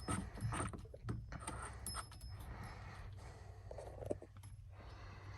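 Faint light metallic clicks and jingles of a nut being threaded by hand onto a car's steering shaft, busiest in the first two seconds, then fewer and fainter.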